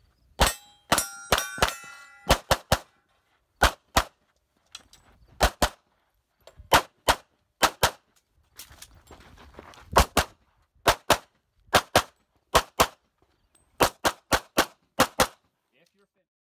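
Rapid pistol fire on a practical shooting stage: about thirty shots, many in quick pairs, with a metallic ringing of steel targets being hit among the first few shots. The firing stops about fifteen seconds in.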